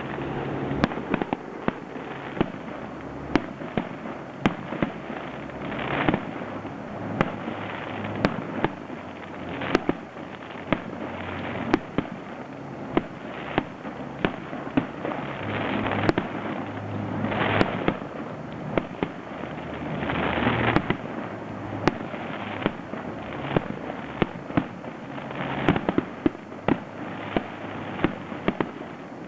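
Aerial fireworks display: a continuous run of sharp shell bursts, one to several a second, over dense crackling, with swells of crackle about six, sixteen and twenty seconds in.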